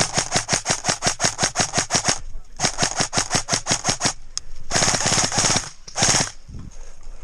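Airsoft guns firing on full auto: two long bursts of rapid, evenly spaced shots at about ten a second, then a faster, buzzing burst and a short one about six seconds in.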